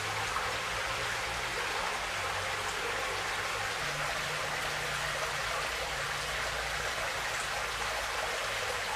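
Muddy floodwater rushing and pouring over a ledge, a steady splashing rush of water.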